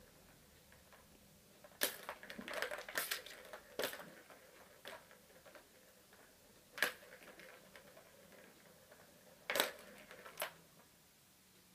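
Plastic balls clattering and clacking around the tracks of an orange three-tier cat tower track toy as a kitten bats at them: a flurry of rattling knocks for about two seconds, then a few single sharp clacks spaced apart.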